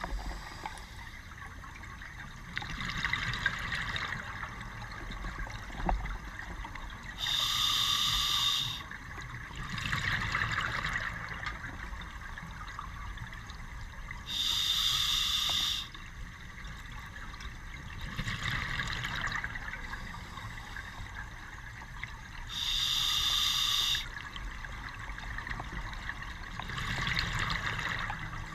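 Scuba diver breathing underwater through an open-circuit regulator. A sharp hiss of inhalation comes about every seven and a half seconds, and a softer burble of exhaled bubbles comes a couple of seconds after each hiss.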